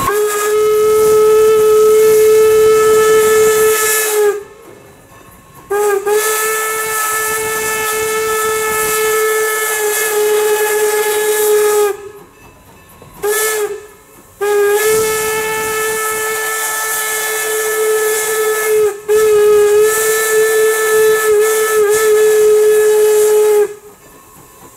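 Norfolk and Western #475's steam whistle blowing four blasts, long, long, short, long: the grade-crossing signal. Each blast carries a hiss of escaping steam.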